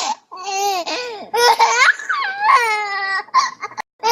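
A baby laughing in repeated high-pitched bouts of squealing giggles, with short breaths between them.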